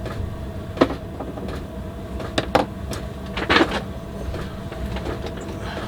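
A few short knocks and clicks of objects being handled and set down, the butane can being put aside, over a steady low background rumble.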